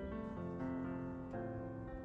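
Slow background piano music, with held notes that change about once a second.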